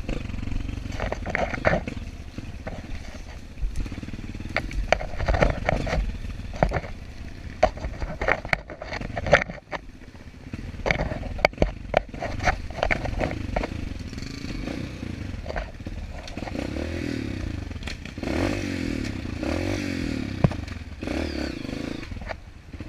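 Trail motorcycle engine running and revving up and down, with frequent knocks and clatter from the bike over rough ground. The engine pitch rises and falls repeatedly in the second half.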